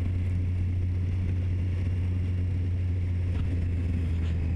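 Triumph three-cylinder motorcycle engine running at a steady, even note while cruising at low speed, with wind and road rush over it.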